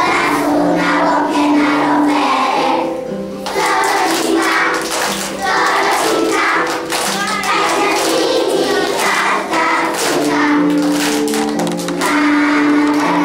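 A large group of young children singing a song together as a choir.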